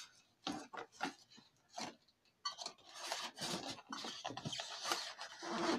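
Cardboard box and packaging scraping and rubbing as an electric radiator heater is tugged out of it: a few short scrapes, then a denser stretch of scraping from about two and a half seconds in.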